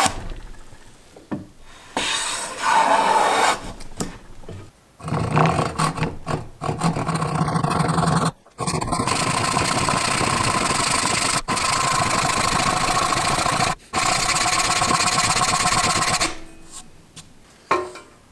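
Hand plane cutting shavings along a wooden board: a couple of short strokes, then long steady strokes of several seconds each, with brief pauses between them.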